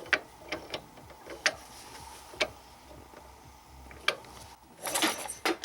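Pit bike engine's freshly repaired kickstarter being worked: a few sharp metallic clicks, then about five seconds in a dense burst of mechanical clatter as the engine is turned over.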